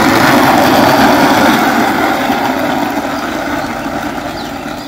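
Road vehicle noise while travelling: a loud, rushing engine and road noise that is loudest in the first second or two and slowly fades.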